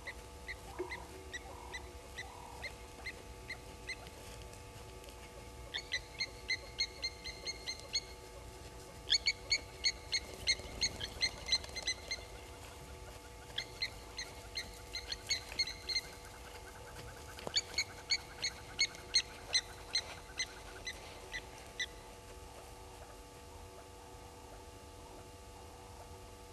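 Blacksmith lapwings giving repeated sharp 'tink' alarm calls at an African harrier hawk, mobbing it. A slow series of about two calls a second gives way to four bouts of quicker calls, about three a second, which stop around two-thirds of the way through.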